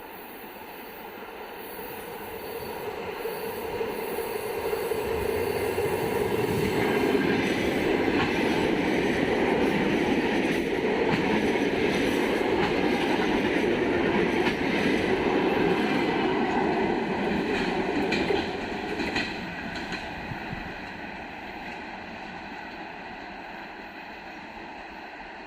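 Train passing on rails: the running noise builds over the first several seconds, holds loud and steady, then drops off sharply about 18 seconds in.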